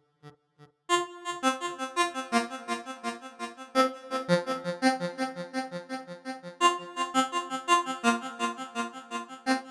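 Synthesizer melody playback with no drums: a few faint single notes, then about a second in a busier loop starts, electric-key chords under a harsh synth pluck counter melody of quick short notes.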